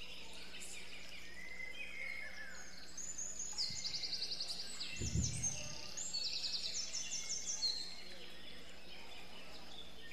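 Birds chirping, with two runs of rapid, evenly repeated trilled calls between about three and eight seconds in. A short dull thump about five seconds in.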